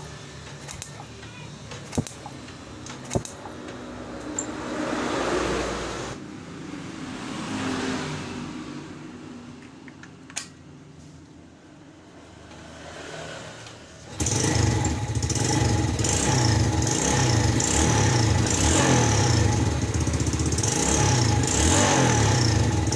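Yamaha Vega ZR motorcycle's small single-cylinder engine starts abruptly about two-thirds of the way in and runs with uneven revving. Before it, there is rising and falling background noise with a couple of sharp clicks.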